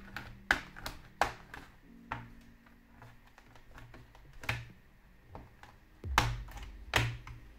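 The plastic clips of an ASUS ROG Strix SCAR laptop's bottom cover snapping loose one by one as a plastic pry tool is worked along the edge: about half a dozen sharp clicks, unevenly spaced, over soft background music.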